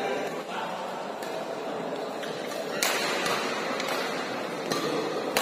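Badminton racket strings hitting a feather shuttlecock back and forth in a fast doubles rally. The hits are a series of sharp cracks about half a second to a second apart, and the loudest comes near the end.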